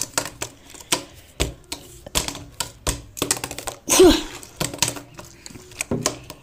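Tech Deck fingerboard clacking against a hard surface as it is flipped and landed: a run of sharp, irregular clicks, about two or three a second, with a short vocal sound about four seconds in.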